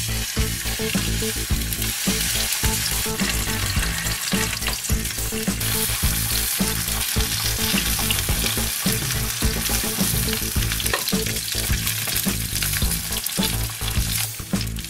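Mackerel fillets sizzling steadily in hot oil in a frying pan, skin side down. The hiss grows stronger about six seconds in.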